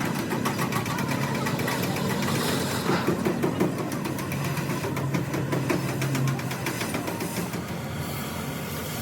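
An engine running steadily with a rapid, even pulse; a low steady hum joins it for about two seconds midway.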